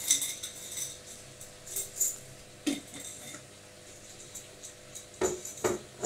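Logik front-loading washing machine running with a faint steady hum, its turning drum giving several sharp metallic clinks and rattles, two close together near the end.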